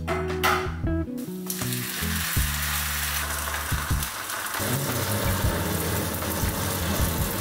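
Green onion pancake frying in a pan, a steady sizzle that starts about a second and a half in, under background music.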